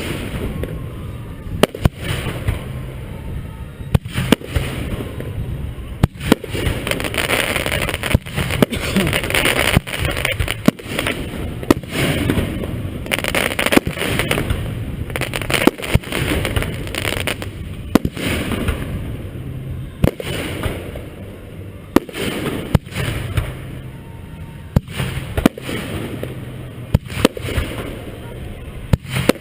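Aerial fireworks bursting close overhead: sharp bangs at irregular intervals of a second or two, with crackling between them, heaviest midway through.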